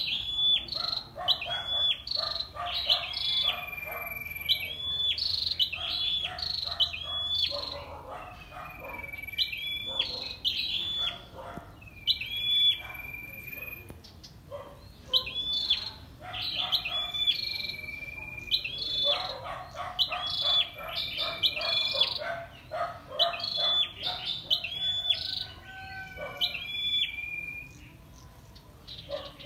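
Caged female red-headed flowerpecker calling vigorously: runs of quick, sharp, high chip notes repeated over and over, with a lower chattering trill beneath them and short pauses between the runs.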